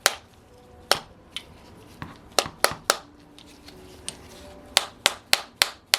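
A dozen or so sharp taps of a tool against a stuck part of a Saito FA-100T twin-cylinder glow engine as it is worked to come loose. The taps come in three quick runs, a few with a faint metallic ring.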